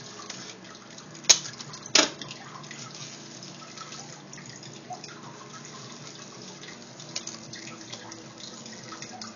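Hands handling a bendy-straw and bubble-wrap panel: two sharp clicks about two-thirds of a second apart, a little over a second in, then soft scattered handling ticks over a steady background hiss.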